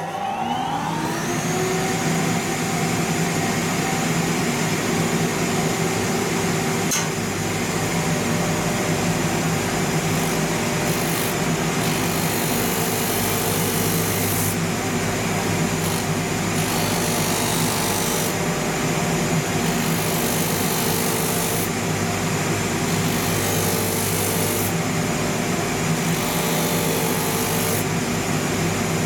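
Shoe finishing machine's rotary sandpaper wheel spinning up with a rising whine, then running steadily. A leather outsole is pressed against the new No. 180 sandpaper to grind off its grain surface, and the scratchy sanding hiss comes and goes over the motor's steady hum.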